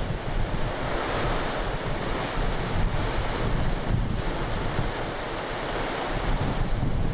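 Strong gusting wind buffeting the microphone, a heavy fluctuating rumble over a steady hiss of heavy rain.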